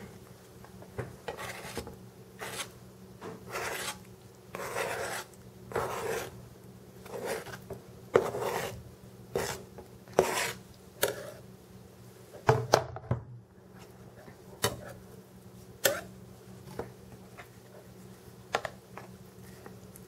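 Chef's knife blade scraping across a plastic cutting board in repeated strokes, pushing cubes of cheese off the board into a casserole dish. The strokes stop about two-thirds of the way through, followed by a few separate sharp taps.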